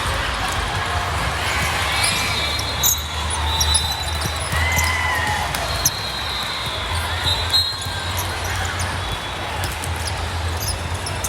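Echoing din of a large sports hall during volleyball play: a steady wash of distant voices, broken by a few sharp ball hits.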